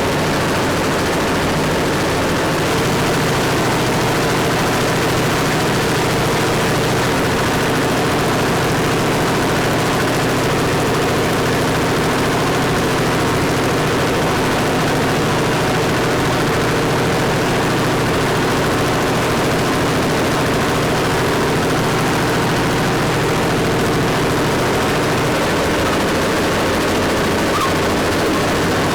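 An engine running steadily: a loud, unbroken machine drone.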